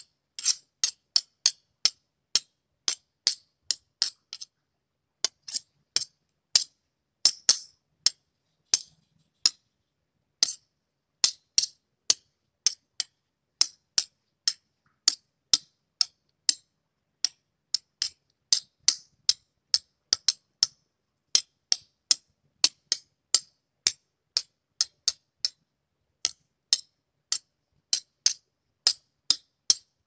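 Knife blades clashing again and again: a long run of sharp, high metallic strikes, about two a second at an uneven pace, some ringing briefly, with a few short pauses between runs.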